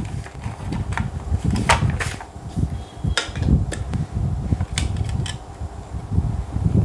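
Hands handling a white plastic electrical switch box and its wiring: several sharp clicks and knocks of plastic over a constant low rumble.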